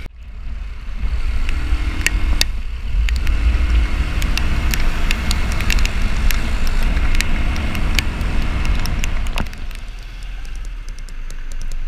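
Honda TMX 125 motorcycle running along at road speed, its engine note under heavy wind rumble on the handlebar-mounted camera, with scattered sharp ticks. About nine and a half seconds in the noise drops as the bike slows.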